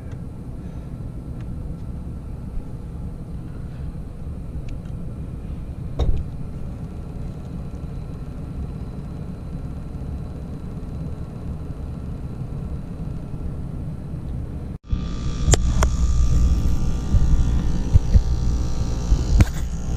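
ClimateMaster geothermal heat pump running after a reset from a low-pressure lockout: a steady low hum, with one click about six seconds in. About fifteen seconds in the sound cuts out for an instant and comes back louder, with a hiss and several sharp clicks and knocks.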